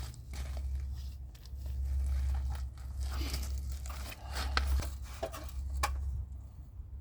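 Crinkling and crunching handling sounds, with a few sharp clicks about four and a half and six seconds in, over a low rumble that swells and fades.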